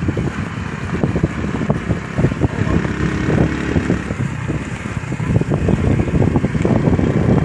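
Wind buffeting the microphone over the rumble of a moving vehicle, a dense steady roar with irregular thumps.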